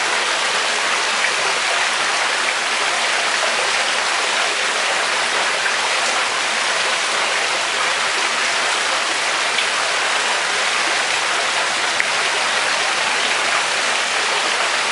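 Water pouring steadily over a small concrete rock waterfall into a swimming pool, a constant splashing rush.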